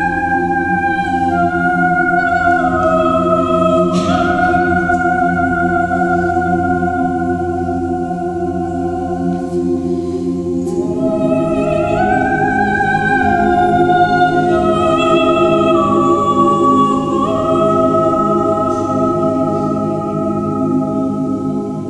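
Mixed choir of women and men singing slow, sustained chords, with a high soprano line carrying the melody above the lower voices; the chord shifts about halfway through.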